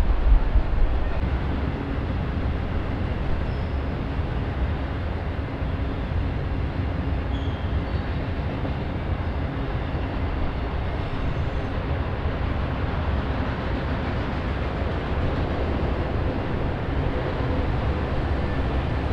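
Train on the track, a steady low rumble of rolling stock with faint tones running under it.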